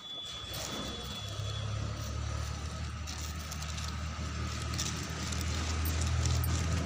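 A low, steady engine rumble starts about a second in and slowly grows louder, over a background hiss.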